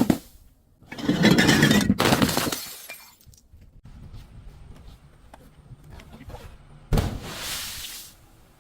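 Glass bottle shattering and crunching as it is crushed, in two loud crackling bursts: the first about a second in, lasting nearly two seconds, the second near the end.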